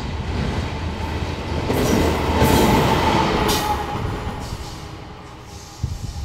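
Diesel-electric freight locomotives running light past on the track: a steady engine rumble with wheel-on-rail noise that swells as they go by, loudest about two and a half to three and a half seconds in, then fades as they move away.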